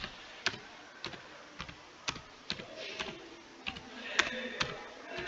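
Slow typing on a computer keyboard: single keystrokes clicking about twice a second.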